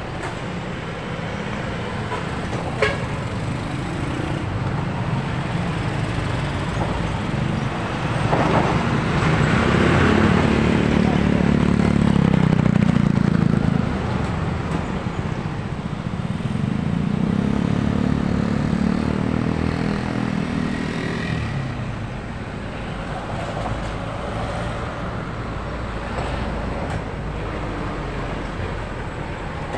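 Road traffic passing on a highway: cars, vans, a pickup and motorcycle tricycles with engines running and tyres on asphalt. Two louder vehicles go by, the first about eight seconds in and the second a few seconds after it.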